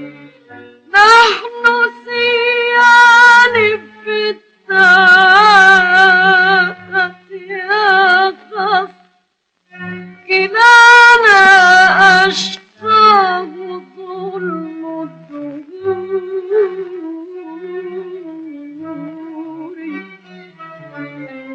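A woman singing a classical Arabic song in long, held phrases with heavy vibrato, backed by a string ensemble. From about 13 seconds in the voice drops out and the strings carry the melody on more quietly.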